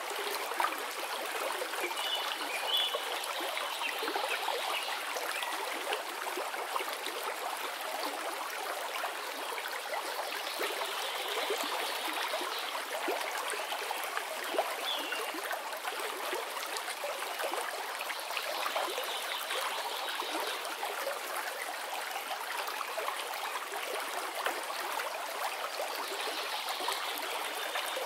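Aquarium aeration and filtration: water bubbling and trickling steadily, with a fine crackle of small bubbles breaking at the surface.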